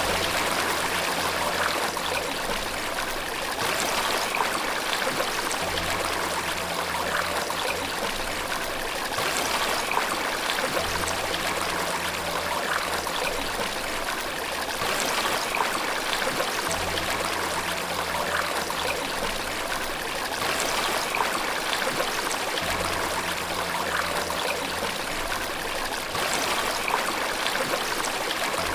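Steady flowing water, like a stream or waterfall, rushing and splashing evenly. Underneath it, soft low sustained music notes change about every five or six seconds.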